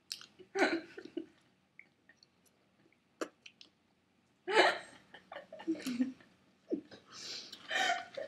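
Several short non-speech vocal bursts from people at an eating table, spaced apart with quiet stretches between them.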